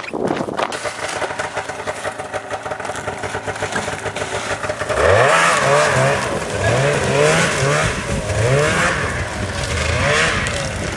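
Snowmobile engine running, then from about five seconds in revved up and let back down again and again, roughly once a second, as the machine is stuck in deep snow and the rider tries to power it out.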